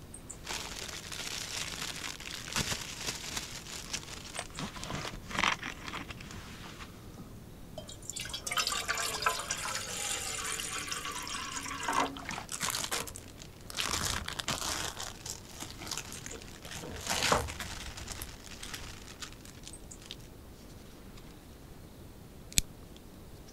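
Plastic food packaging crinkling and rustling as it is handled. Then water is poured from a plastic bottle into a small metal pot for a few seconds, rising in pitch as it fills, followed by more crinkling of packaging and one sharp click near the end.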